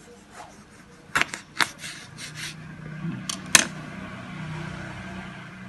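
Short clicks and knocks of kitchen utensils being handled, about a dozen over two and a half seconds, the sharpest about three and a half seconds in, with a faint steady low hum underneath from about three seconds in.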